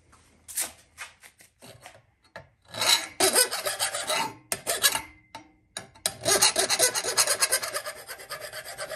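A metal file rasping on the flattened end of a steel EMT conduit piece, deburring it. A few short strokes come first, then a run of steady filing about three seconds in, and a longer run from about six seconds in.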